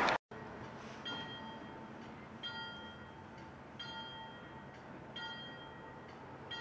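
A distant train warning bell ringing in a slow, even rhythm, one clear strike about every second and a half with fainter strikes between, from the approaching MBTA commuter train.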